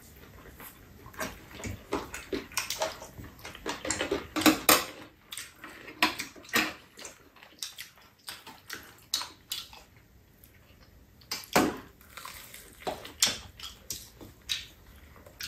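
Close, wet mouth sounds of people eating fried chicken: irregular smacking and chewing in short, sharp bursts, with no talking.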